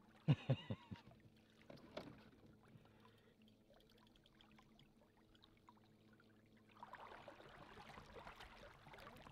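Faint water splashing and lapping at the surface, which thickens into a steadier sloshing about seven seconds in. A brief louder sound comes near the start.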